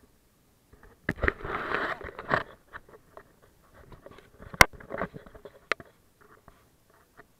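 Handling noise on a camera: fabric rustling and scraping against it, with scattered clicks. One sharp knock comes about four and a half seconds in.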